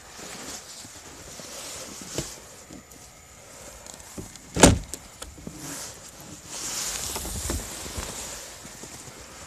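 Footsteps crunching in snow, then one sharp clunk about halfway through as the homemade riveted door of a Kawasaki Teryx 4 side-by-side is unlatched and swung open, followed by rustling and a few lighter knocks.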